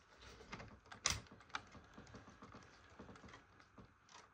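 Faint, irregular light clicks and taps of the camera being handled and repositioned, with one sharper click about a second in.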